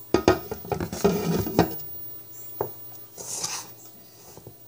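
Wire whisk clattering and clinking against a mixing bowl while batter is stirred, with knocks of glassware; a quick run of clinks in the first couple of seconds, a single knock, then a brief swish.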